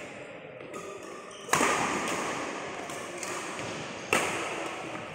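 Badminton racket hitting the shuttlecock twice in a rally, two sharp cracks about two and a half seconds apart, each ringing out in an echoing hall. Fainter taps in between.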